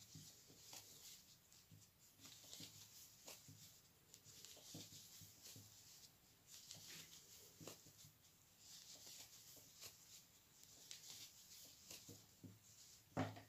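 Faint rustling and scratching of velvet yarn being pulled through stitches with a crochet hook, in many small irregular strokes, with one soft bump near the end.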